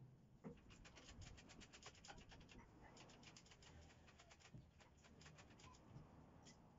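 Faint runs of quick light clicks, about ten a second, with some scratching.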